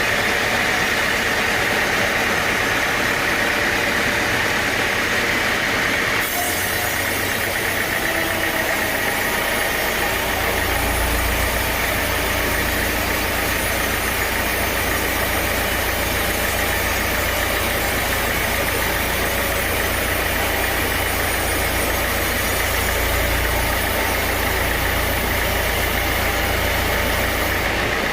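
Sawmill machinery running steadily with an engine-like drone. About six seconds in the sound shifts, with more hiss added, and a low hum comes in a few seconds later.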